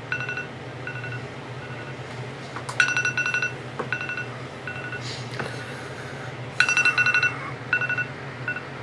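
Smartphone wake-up alarm going off: a quick run of rapid high beeps followed by a few single beeps that fade away, the pattern repeating about every four seconds over a steady low hum.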